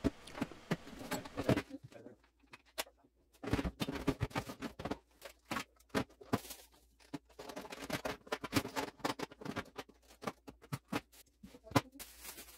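Irregular rustling of plastic grocery bags with light knocks and clicks of small items being handled and set into a plastic storage tote.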